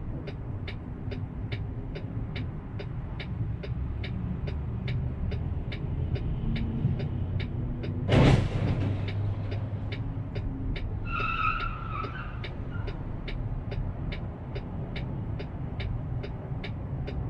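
Idling truck engine running low and steady in the cab, with a turn-signal relay ticking about twice a second. About eight seconds in comes a sudden, loud burst of noise lasting about half a second, and a few seconds later a brief high-pitched squeal.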